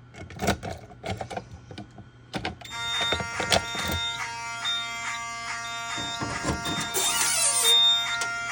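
Clicks and clunks of a Simplex T-bar manual pull station being operated, then the fire alarm system goes into alarm about two and a half seconds in: several horns sound together in a steady, pulsing, multi-tone blare with high beeps on top. A brief falling tone comes near the end.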